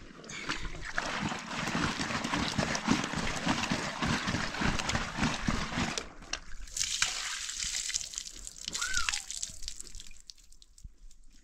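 Water from a tank tap splashing and sloshing into a bag held beneath it, then pouring out of the lifted bag onto the ground.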